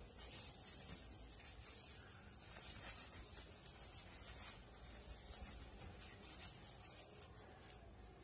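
Near silence, with faint scattered rustles and small ticks from handling tissue paper and craft materials.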